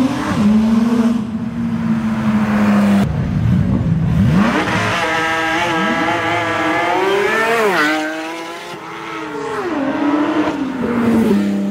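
Sports cars pulling away one after another and accelerating hard, their engine notes climbing in pitch and then dropping sharply. The loudest pull comes about halfway through.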